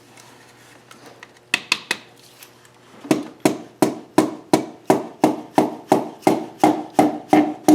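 A piston being tapped down through a ring compressor into the cylinder bore of a Nissan KA24DE engine: two sharp clicks, then a steady run of light taps about three a second, each with a short ring. The rings slide in cleanly.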